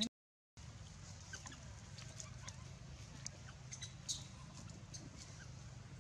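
Faint outdoor background: a steady low hum with scattered short high chirps and ticks, after a half-second dropout to silence at the start.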